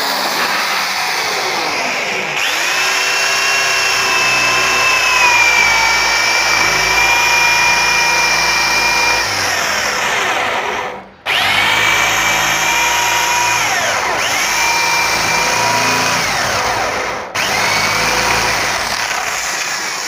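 Corded electric drill with a 20 mm spade bit boring a hole through a wooden sliding wardrobe door. The motor runs steadily at high speed, its pitch dipping several times as the bit loads up, and it stops briefly twice, about 11 and 17 seconds in.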